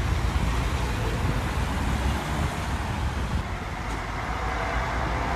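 Motorway traffic noise: a steady low rumble of vehicles, changing abruptly a little past three seconds in.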